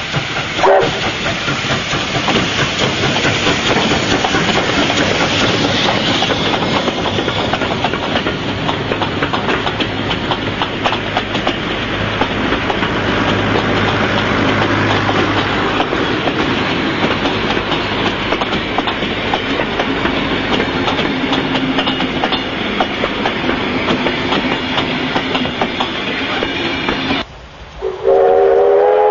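Steam locomotive K160, a Victorian Railways K-class 2-8-0, and its passenger carriages passing close by, with a brief squeal about half a second in. The steady rush of the train carries a long run of wheel clicks over the rail joints as the carriages roll past. Near the end the sound cuts away and a steam whistle sounds a steady chord of several notes.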